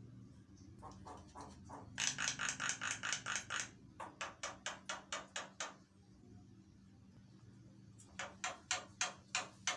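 Javan myna (jalak kebo) calling in rapid runs of harsh repeated notes, about six a second, in several bursts with a pause of about two seconds before the last run.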